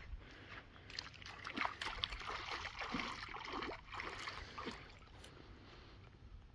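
Water sloshing and splashing as a person wades through shallow lake water, busiest from about one second in until nearly five seconds, then dying down.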